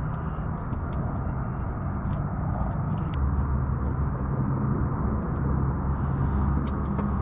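Steady low rumbling hum that grows louder about three seconds in, with scattered faint light clicks.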